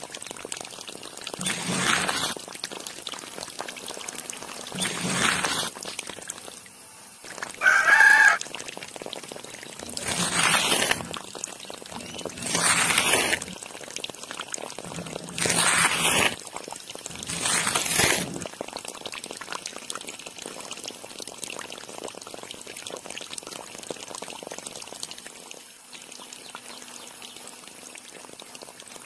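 Water pouring and splashing in about six short bursts over a steady trickling hiss. A rooster crows once, about eight seconds in.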